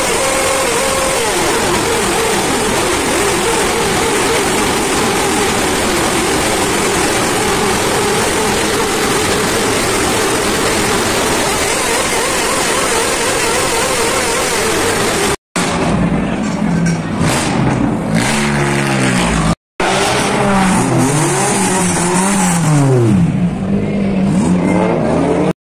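A row of sport motorcycles revving hard together inside an underground car park, a loud continuous roar. After a cut, a car engine is revved up and down in repeated blips.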